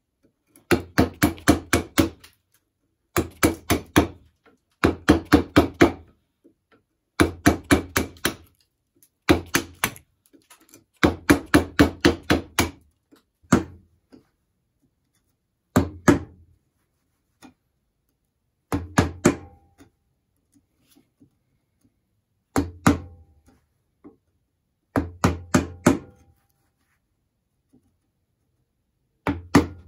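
Mallet striking a chisel chopping waste out of a deep pocket in a wooden block: quick runs of five or six sharp knocks, about four a second, with short pauses between, thinning to one to four blows at a time in the second half.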